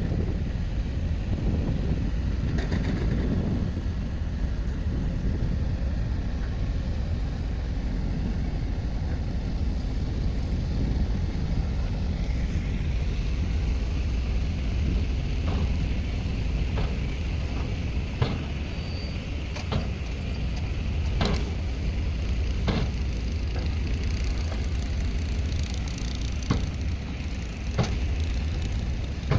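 Diesel engine of heavy earthmoving machinery running steadily with a deep rumble. A higher whine joins it about twelve seconds in, and scattered sharp metal clanks follow through the rest.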